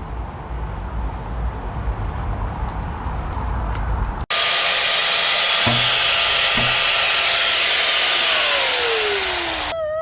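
Loud steady machine noise in two clips joined by a hard cut about four seconds in. In the second clip, a tone falls steadily in pitch near the end.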